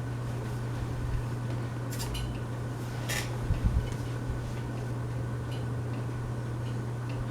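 Harbor Breeze Pulsar ceiling fan running on high with a steady motor hum; the owner puts its noise down to bearings that probably need oiling. A few light clinks come about two and three seconds in, followed by a couple of soft thumps.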